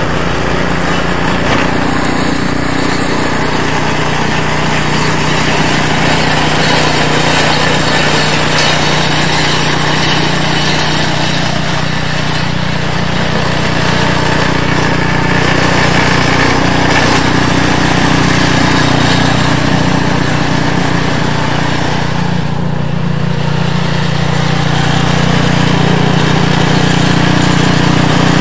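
REDVERG RD-SB60/950BS-E snowblower's Briggs & Stratton engine running steadily as the machine clears snow.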